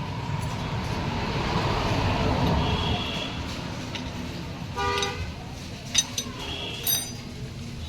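Street traffic: a vehicle passes, then a vehicle horn gives a short toot about five seconds in, with further brief high beeps and a sharp metallic click near six seconds.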